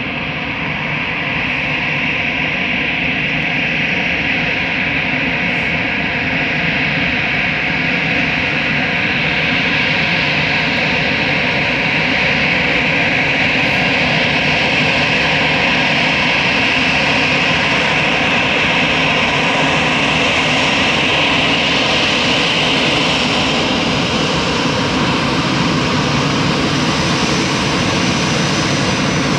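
Twin jet engines of an Airbus A319 airliner running with a steady roar and whine. The sound grows louder over the first ten seconds or so as the aircraft comes closer along the runway, then holds steady.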